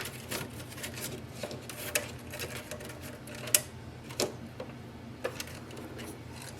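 Irregular light clicks and taps of plastic printer parts being handled and seated as the Epson ET-2400's print head assembly is fitted back into the printer, the sharpest click about three and a half seconds in, over a faint low hum.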